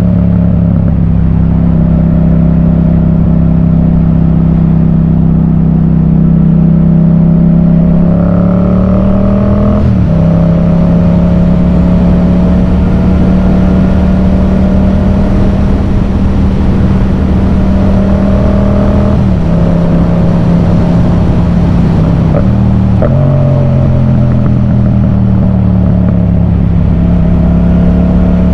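Yamaha MT-07's parallel-twin engine running through a Yoshimura full exhaust under way. A steady drone climbs in pitch about eight seconds in and drops sharply at an upshift about ten seconds in. It eases off around nineteen seconds, then after another quick shift near twenty-three seconds it falls slowly in pitch.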